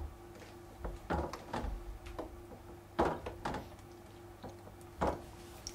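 Photographic developer sloshing in a shallow plastic darkroom tray as it is rocked to agitate a freshly exposed test print, heard as a series of short irregular swishes and knocks. A steady faint hum runs underneath.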